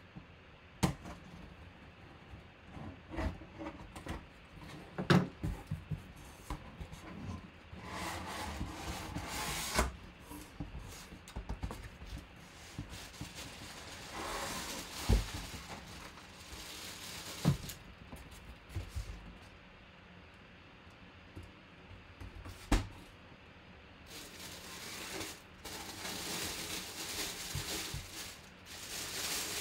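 A cardboard box being cut open and unpacked: a knife slicing along the top, cardboard flaps rubbing and knocking now and then with sharp knocks. Near the end, a plastic bag rustles as it is handled.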